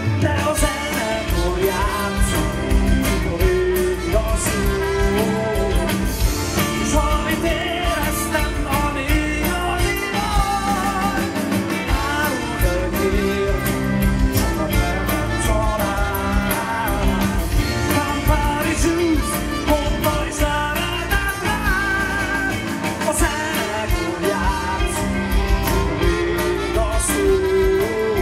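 Live rock band playing, with electric guitars, bass guitar, drums and trumpet, and a man singing into a handheld microphone over them.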